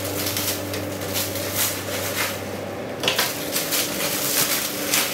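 Clear plastic stretch wrap crinkling and rustling in irregular crackles as it is cut with scissors and pulled off a machine, over a steady low hum.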